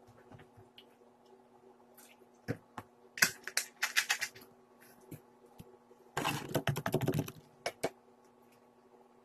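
Tableware handling at a dining table: a plastic drink bottle and a fork clicking and tapping against the table and plastic bowls. There is a quick run of clicks, then about a second of dense rattling about six seconds in. A faint steady hum runs underneath.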